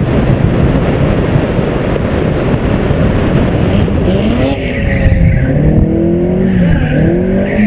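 Engine of a rear-wheel-drive Suzuki slalom car driven hard, heard from on board. The revs rise and fall again and again, with quicker swings up and down in the second half.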